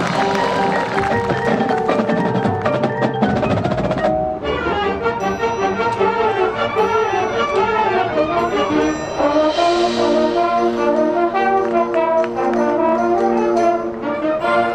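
Marching band playing: the full band of brass and drums for the first four seconds, then the texture drops suddenly to the front ensemble's mallet percussion (marimba, xylophone, glockenspiel) playing quick repeated figures over held low notes.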